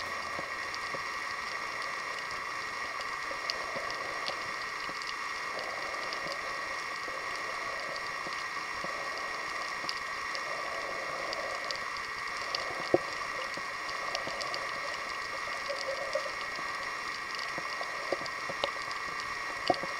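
Underwater ambience picked up by the camera's microphone below the surface: a steady hiss with scattered crackles and small pops, one sharper pop about halfway through.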